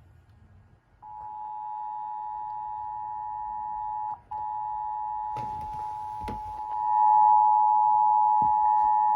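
Emergency Alert System two-tone attention signal: two steady tones sounding together just below 1 kHz, starting about a second in, cutting out for a moment a few seconds later, then louder from about two-thirds of the way through. It heralds a child abduction (Amber Alert) emergency message.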